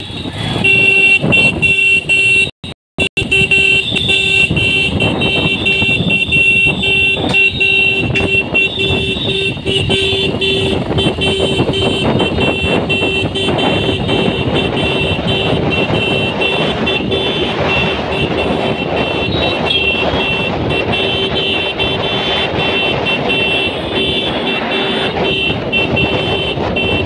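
Motorcycle running along a town road, heard from the rider's seat: a steady engine and road rumble mixed with wind noise, with a thin steady high tone over it. The sound drops out briefly about three seconds in.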